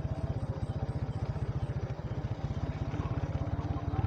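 Motorcycle engine running steadily, an even, rapid low putter of firing pulses.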